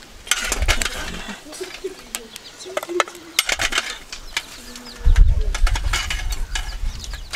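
Metal spoon clinking and scraping through burning charcoal in a metal brazier, coals knocking together as they are scooped onto a pot lid, in a quick run of sharp clicks. A low rumble comes in about five seconds in.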